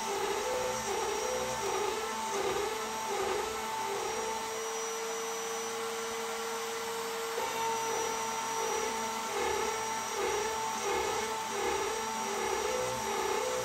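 DeWalt compact router spindle on a 3D-printed CNC machine running steadily while its end mill cuts an aluminium plate. The cutting note swells and falls in a regular cycle about three times every two seconds as the tool moves through its passes, holding steady for a few seconds in the middle.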